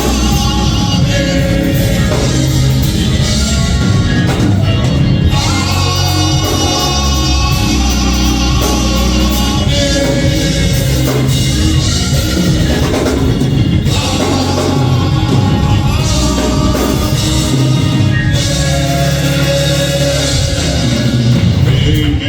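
Live gospel worship music: singing over a band with a drum kit, played loud and steady.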